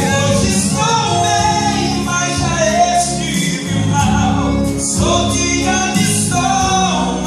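A man singing a Portuguese gospel song into a microphone over instrumental accompaniment, heard through the church's sound system.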